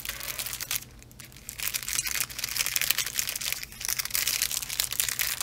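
Clear plastic packaging sleeve crinkling and crackling as a rolled diamond-painting canvas is pulled and worked out of it, with a brief quieter lull about a second in.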